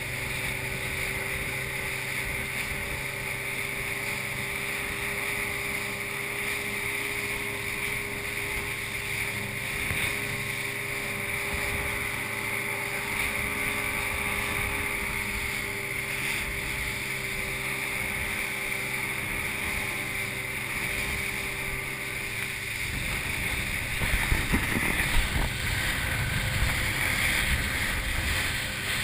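Motorboat under way at speed: a steady engine drone under wind and water rushing past the hull. Near the end a few sharper thumps come through as the boat runs over chop.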